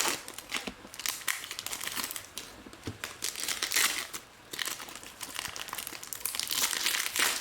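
Trading card packs being ripped open by hand, their wrappers crinkling and tearing in irregular bursts. The flimsy wrappers come apart rather than tearing cleanly.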